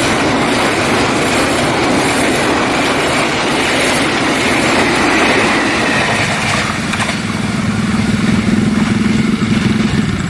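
Passenger train coaches rolling past close by, their wheels rumbling on the rails with a high ringing from the wheels. About seven seconds in, as the green rear car goes by, the ringing fades and a steady low hum takes over.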